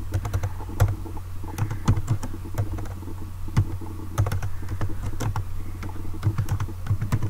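Computer keyboard keys clicking in irregular runs of typing and correcting text, over a steady low hum.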